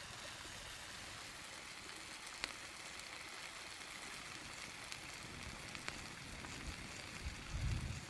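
Faint steady hiss with a few soft crackles from snails cooking in a wok over an open wood fire, and some low thumps near the end.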